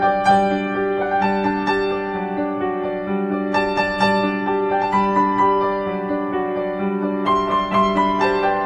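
Background instrumental music with sustained keyboard notes.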